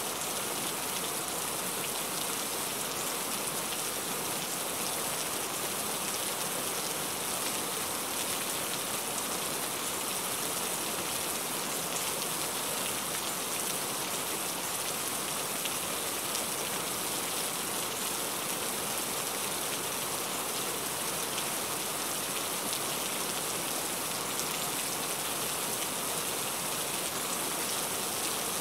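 Heavy rain falling steadily, a constant even hiss of many drops, with fine individual drop ticks scattered through it.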